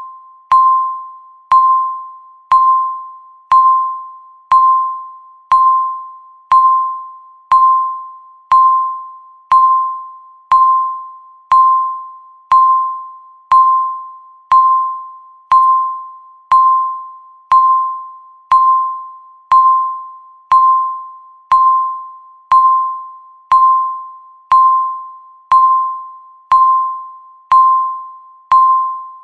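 Countdown timer beep sounding once every second, a single clear ding-like tone that starts sharply and fades before the next, marking each second counted down.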